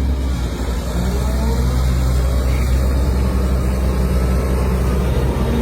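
Diesel engine of a heavy construction machine running steadily at an even, low speed.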